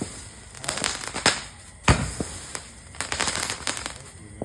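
Fireworks going off in a string of sharp bangs and crackling pops at irregular intervals, the loudest bang about two seconds in.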